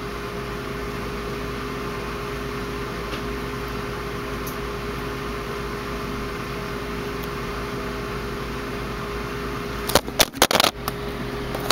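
A steady mechanical hum carrying a few low tones, then about ten seconds in a quick cluster of loud knocks and clatter as the camera is knocked over.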